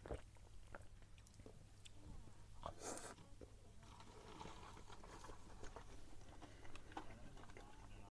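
Faint sounds of a person eating pizza: biting and chewing, with small soft clicks and a brief rustling noise about three seconds in.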